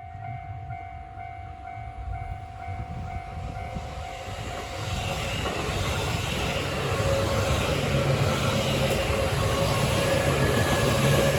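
Japanese level-crossing alarm ringing in a steady repeating rhythm as a JR Yamatoji Line train approaches. The train noise grows from about five seconds in into a loud, steady rumble and rush as the train passes over the crossing.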